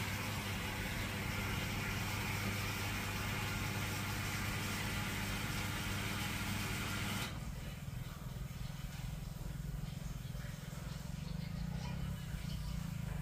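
A machine running steadily with a low, even hum, overlaid by a loud hiss that cuts off suddenly about seven seconds in, leaving the hum alone.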